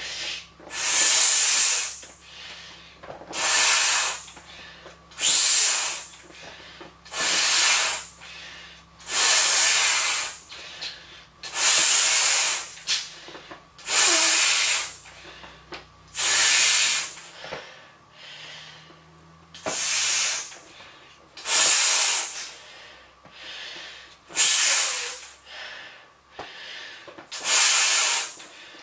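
A large inflatable beach ball being blown up by mouth through its valve: a strong breath of air rushes into it about every two seconds, each blow a loud hiss lasting about a second, with short quiet pauses between.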